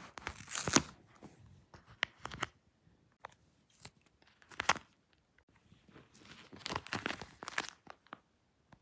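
Paper and tape of a homemade squishy book being handled, giving irregular short bursts of crinkling and tearing with quiet gaps between them.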